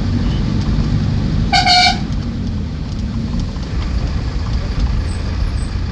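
Road traffic running with a steady low rumble, and a single short vehicle horn toot about one and a half seconds in.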